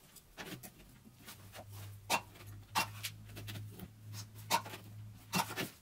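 Battery spot welder in use on nickel strip over 18650 lithium-ion cells: a steady low mains hum from about half a second in until near the end, with four or five short sharp clicks as the copper electrodes are pressed on and fired.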